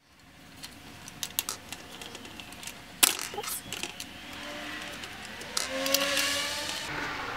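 Small screws being worked out of a plastic shift boot trim panel by hand: scattered faint clicks and scrapes of plastic and metal, with one sharper click about three seconds in.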